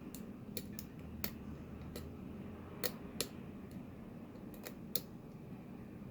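Lock pick and tension wrench working the pin stack of a padlock under light tension: about ten small, sharp metallic clicks and ticks at irregular intervals as the pick lifts and sets pins.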